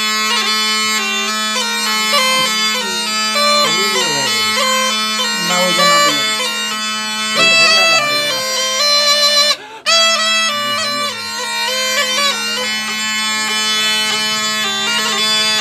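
A snake charmer's been (pungi), a reed pipe that sounds a steady low drone under a wavering, ornamented melody, played without letup. It stops for a moment about ten seconds in, then picks up again.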